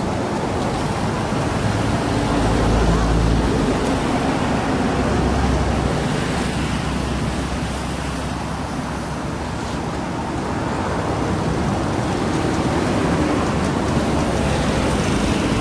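Steady road-traffic noise, with low rumbles of vehicles passing about three and six seconds in.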